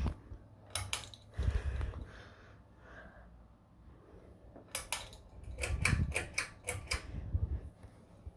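Sharp mechanical clicks: two a little under a second in, then a quick run of about seven in the middle, with low thumps beneath them.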